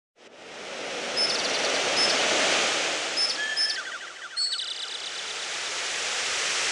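A nature-sound ringtone on an LG VX5600 Accolade phone: a rushing, surf-like noise fades in, dips briefly midway and swells again, with about six short high chirps, each trailed by quick repeating echoes.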